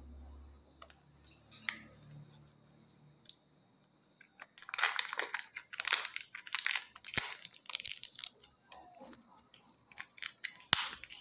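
The thin sealed lid of a Kinder Joy egg's toy half being peeled off. From about halfway in there are about four seconds of crinkling, tearing rustles, then a few light plastic clicks and one sharp click near the end.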